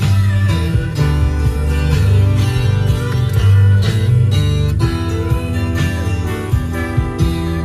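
Music playing loudly, guitar-led over a heavy, steady bass.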